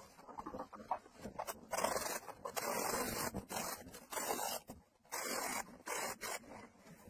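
Paint roller rubbing and scraping against a wooden beam in a series of short strokes, each under a second, at an uneven pace. The strokes begin about a second and a half in.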